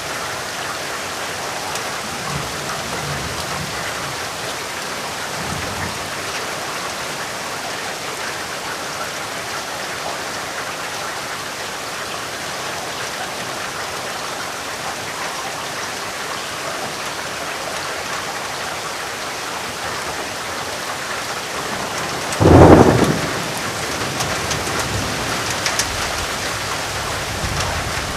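Steady heavy rain falling, with faint low thunder rumbles early on and one short, loud, sharp thunderclap near the end.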